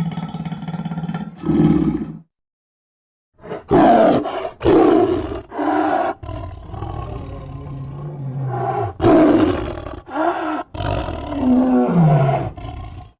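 A run of short animal roar and growl sound effects played one after another, each cut off abruptly, after about a second of silence; one near the end falls in pitch.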